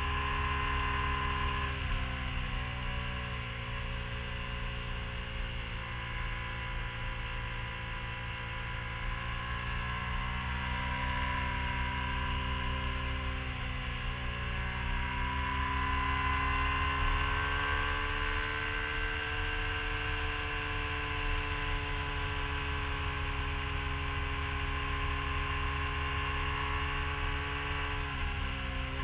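Sport motorcycle engine running at fairly steady revs through a series of bends, its note easing down and rising again a few times, with wind and road rumble underneath.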